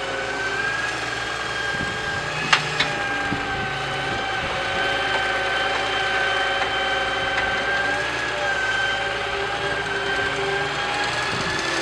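Toy excavator running with a steady engine-like hum and a high whine, and two sharp clicks about two and a half seconds in.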